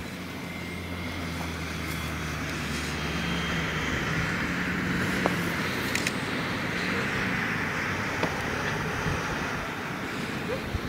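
Engine of a passing vehicle: a low hum and the rush of the vehicle swell to a peak about halfway through, then fade.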